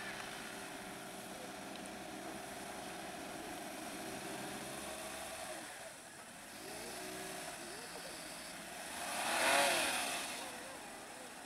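Vehicle engines idling steadily, then a vehicle drives past close by about nine seconds in, its engine sound swelling and fading away.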